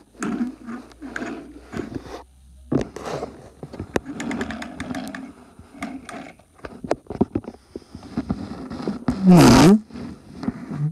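Plastic toy engine and trucks pushed by hand across a wooden floor: wheels scraping and clattering, with many small clicks and knocks. About nine seconds in comes a short, loud voice-like sound that swoops down in pitch and back up.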